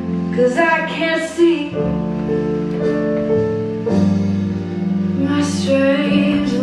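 Music: a slow song with long held notes.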